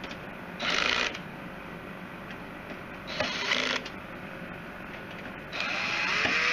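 Drill-driver tightening radiator screws in three short bursts, the last the longest, its clutch ratcheting as it reaches the torque setting.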